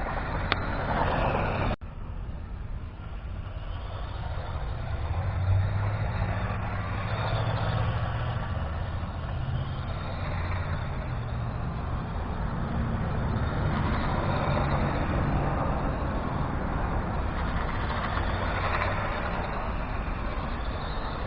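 Gizmovine 1:16-scale electric RC mud truck driving, its motor and gears whirring and its tyres running over the ground. The sound breaks off sharply about two seconds in, then carries on steadily.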